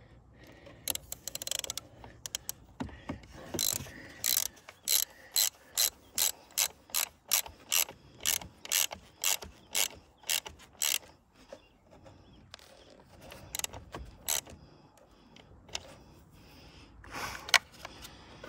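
Ratchet wrench tightening the positive terminal clamp nut on a car's 12V battery: a run of short pawl clicks at about two to three a second, with scattered clicks before and after.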